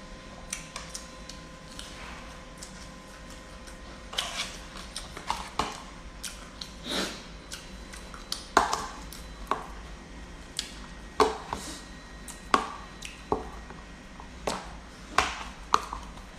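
A metal spoon scraping and clinking against a plastic food container as food is scooped out, in irregular sharp clicks about once or twice a second from about four seconds in.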